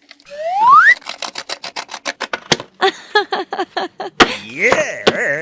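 A short rising whistle-like glide, followed by a quick run of sharp clicks and taps for about three seconds. A brief wavering voice-like sound comes near the end.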